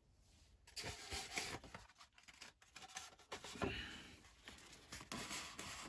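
A plastic clamshell package being worked off a diecast model car by hand: irregular scraping and rustling of plastic, with louder scrapes about a second in and again near four seconds.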